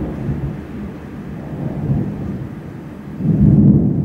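Thunder rolling in a deep, low rumble that swells about two seconds in and peaks loudest at about three and a half seconds before dying away.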